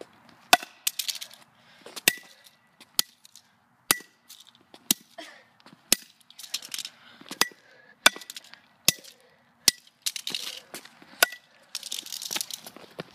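A hammer repeatedly striking a die-cast metal Hot Wheels toy car on asphalt, about once a second, about eleven blows. Many blows are followed by a short metallic ring. Scuffing and scraping noise comes in between the blows.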